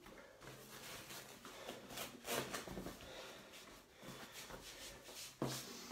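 An exercise mat being unrolled and shaken out, a faint rustling and flapping with scattered small knocks, then a short slap near the end as it comes down.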